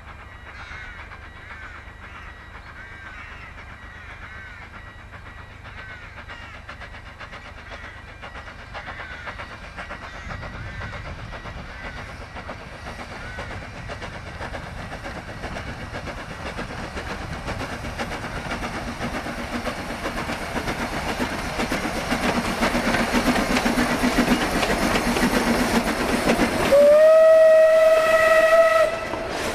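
Isle of Man Railway No. 12 Hutchinson, a Beyer Peacock 2-4-0 tank steam locomotive, working a passenger train. The running train grows steadily from faint to loud as it approaches, and near the end the engine sounds one loud whistle blast of about two seconds, rising slightly in pitch as it opens.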